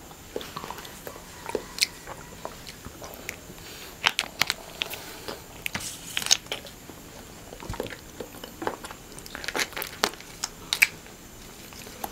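Eating sounds of konjac jelly from small plastic packets: wrappers crinkling and clicking as they are torn open and squeezed, with chewing and sucking mouth sounds, in short scattered bursts.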